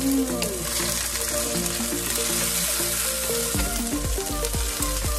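Chopped white onions sizzling in hot vegetable oil in a nonstick wok, stirred with a wooden spatula, with scraping strokes near the end. Background music plays underneath.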